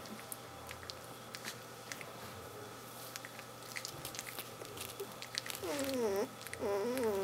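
17-day-old Kelpie puppies squirming in a pile, with soft clicks and rustling, then near the end two wavering, whining calls from a puppy.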